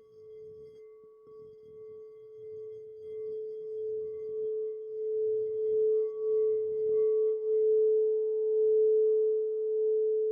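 Tibetan singing bowl sounding one sustained, ringing tone with faint higher overtones. It grows gradually louder over the first few seconds, then holds with a slow wavering pulse.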